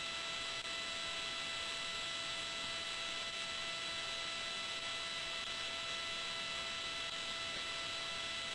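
Steady electronic hiss with a faint hum of several unchanging tones: the background noise of a launch broadcast's open audio line.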